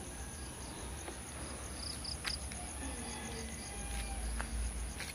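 Night insects: crickets chirping in short high trills over a steady background hum. There are a few faint clicks, and a low rumble about four seconds in.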